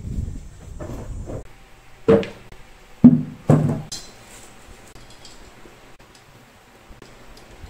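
Wooden cabinet board strips knocked down on a tile floor: three sharp knocks, the second the loudest, after a low rumble at the start. Faint clicks follow as a metal corner clamp is handled.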